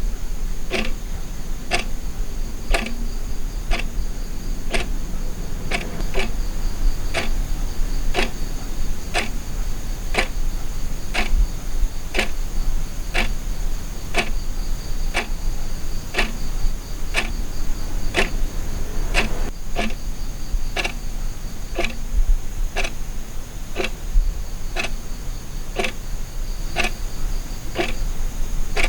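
Wall clock ticking steadily, about once a second, over a constant high trill like night crickets.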